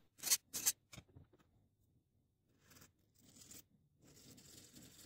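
A hand file rasping twice across the edge of a small etched metal part, followed by a few light clicks and faint rubbing as the part is handled between the fingers.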